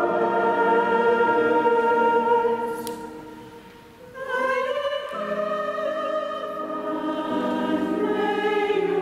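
Mixed choir singing sustained chords in a large stone cathedral. A phrase ends and dies away in the echo about three seconds in, and a new phrase begins about a second later.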